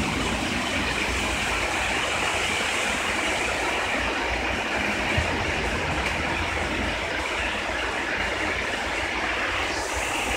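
Heavy rain pouring down steadily in a thunderstorm, a constant even hiss.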